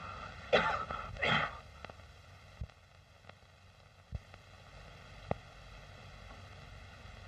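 Two knocks in the first second and a half, then the steady faint hiss of an old film soundtrack with a few faint clicks.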